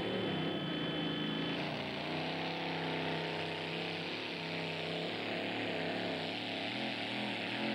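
Supercharged engine of a mini-class pulling tractor running hard under load as it pulls down the track, its note wavering up and down.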